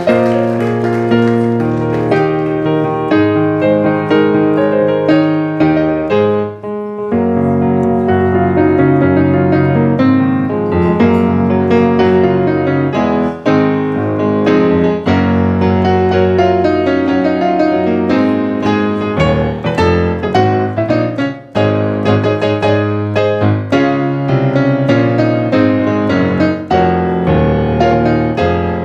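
Piano playing continuously: dense, shifting chords and runs of notes, with two brief breaks in the sound about six and a half and twenty-one seconds in.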